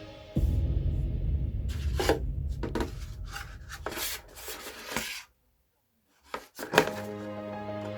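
Rubbing and scraping handling noises with several knocks over a low rumble. They cut out suddenly just after 5 s, and background music comes back near the end.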